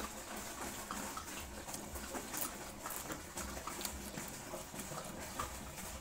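Eating sounds of a person chewing and smacking his lips while eating by hand: a run of small, irregular wet clicks.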